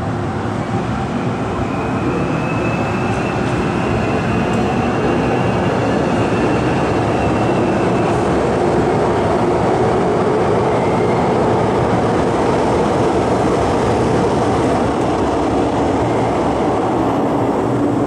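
MTR M-Train electric metro train running through an underground station without stopping, heard through the platform screen doors as a steady rumble. A thin high whine sounds over roughly the first half.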